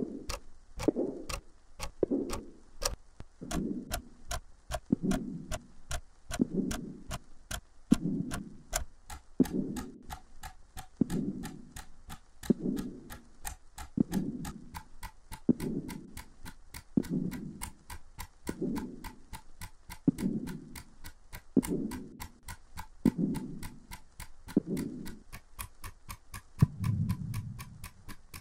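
Even clock-like ticking, several ticks a second, over slow, soft footsteps, one low thud about every one and a half seconds; near the end one longer, deeper thud.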